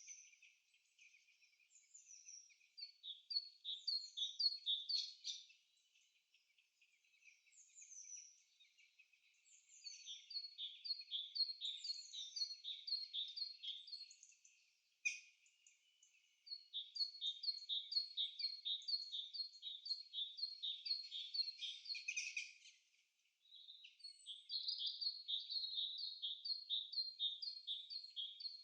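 Birds chirping in rapid runs of short, repeated high notes, several a second, with a few quieter lulls between the runs.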